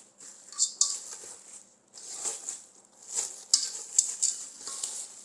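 Cast aluminium cooking pots and lids being handled, knocking and clinking against each other about eight times, some strikes with a short metallic ring.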